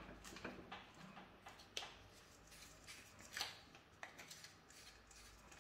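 Faint, scattered clicks and scrapes of plastic as an LED bulb that was shaking loose is gripped and twisted in its plastic lampholder. Two clicks, about two and three and a half seconds in, stand out from the rest.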